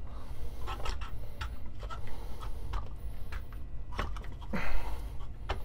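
Scattered small clicks and scrapes as the Niche Zero grinder's top housing is handled and worked loose by hand, before it lifts off.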